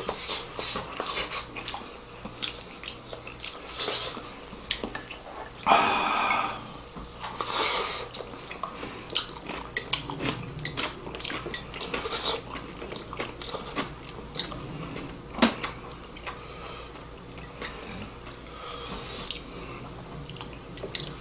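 Close-miked eating sounds: chewing and wet mouth noises from two people, with chopsticks tapping against bowls and plates. A louder burst comes about six seconds in.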